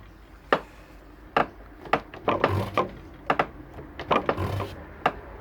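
Hand-lever pump of a diesel injector pop tester being worked, a run of sharp mechanical clicks, with short hissing bursts as the Mercedes OM617 injector nozzle sprays, twice. The injector is a faulty one that streams fuel instead of misting.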